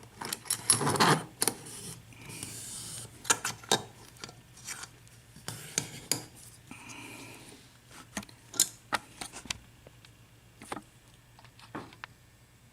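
Scattered metallic clicks, clinks and scrapes from a padlock being set up in a bench vise and small lock-picking tools being handled, with a short rustle about a second in.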